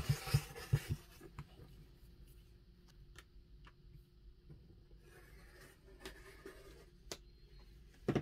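Rotary cutter rolling through cotton quilting fabric along an acrylic ruler on a cutting mat, a short scratchy cut in the first second. After that, only a few light clicks and taps from the ruler and cutter, then a couple of louder knocks near the end.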